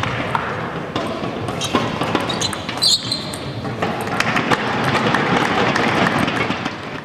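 Table tennis rally: the ball clicking repeatedly off the bats and the table over the steady noise of a sports hall, with a brief squeak about three seconds in.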